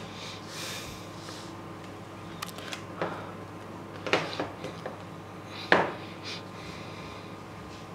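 Plastic felt-tip markers being handled: a soft rustle near the start, then several light clicks and knocks of marker barrels and caps, the sharpest about three-quarters of the way through.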